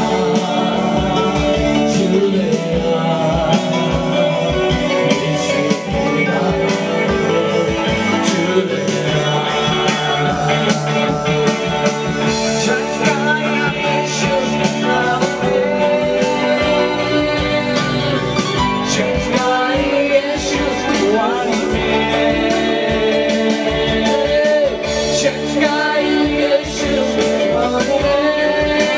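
Loud worship song: singing with instruments over a steady beat.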